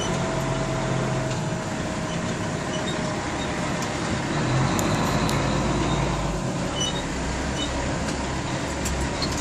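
Fire engine's motor running steadily, a low rumble heard from inside the cab.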